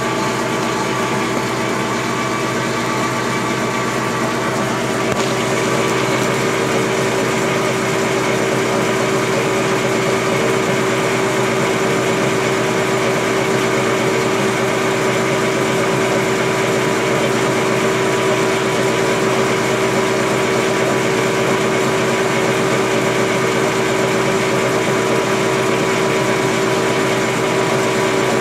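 Metal lathe running steadily while a center drill in the tailstock drill chuck cuts a center hole into the end of the spinning shaft: a constant motor-and-gear hum with a steady tone.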